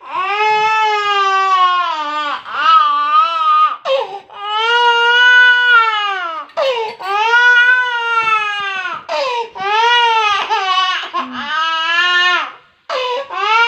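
A small child crying hard in a string of long, wavering wails with brief catches of breath between them, after being woken from sleep by coughing.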